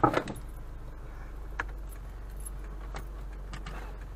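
Inside a car at a standstill in snow: a low steady hum, with a few faint light clicks about a second and a half, three and three and a half seconds in.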